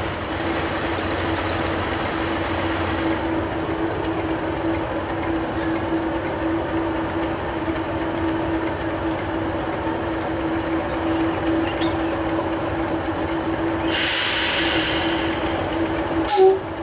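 English Electric Class 37 diesel locomotive idling with a steady engine hum. About fourteen seconds in a loud hiss of air lasts about a second and a half, and a short sharp sound follows just before the end.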